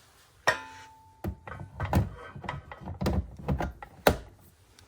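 A DeWalt FlexVolt battery pack being handled and set onto its charger to charge. There is a sharp clack about half a second in, then a brief steady tone, then a run of knocks and thumps, the loudest near the end.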